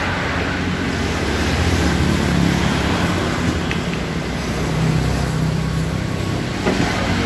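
Motor vehicle engine running steadily with a low hum that shifts a little in pitch, under a constant hiss.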